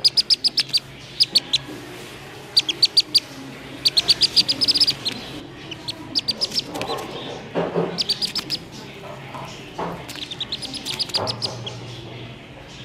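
Black-bellied whistling duck duckling giving its distress call: quick runs of short, high, sharp peeps, repeated in bursts of several peeps at a time.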